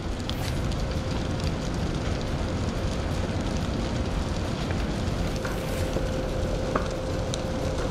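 Steady rushing, rumbling noise with a thin steady hum and a few faint crackles.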